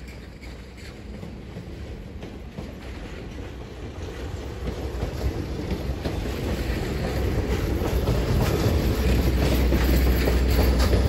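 Passenger railroad cars rolling past close by: steel wheels rumbling and clicking over the rail joints, growing louder toward the end.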